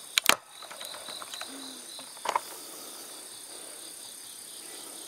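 Steady chorus of crickets or similar night insects chirring, with a pulsing chirp about a second in. A few sharp clicks or knocks sound at the very start and once more a little after two seconds in.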